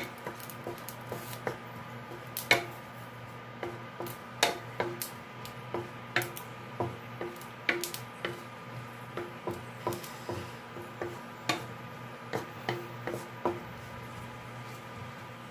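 Wooden spatula stirring chopped garlic in a non-stick wok, with irregular knocks and scrapes against the pan about one or two a second, over a steady faint hum.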